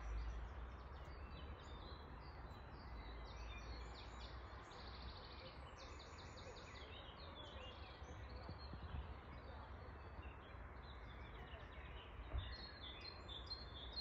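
Small songbirds singing faintly, scattered chirps with quick trilled runs of repeated notes, busiest about a third of the way in and again near the end, over a low steady rumble.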